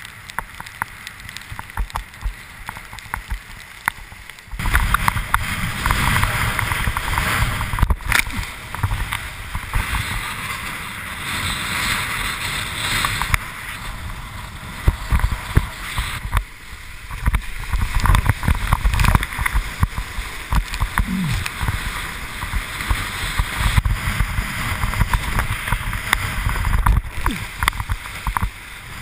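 Wind buffeting a windsurf rig's action camera microphone, with water rushing and spray hissing under a board planing across choppy sea. It is quieter for the first few seconds, then much louder, and it changes abruptly several times.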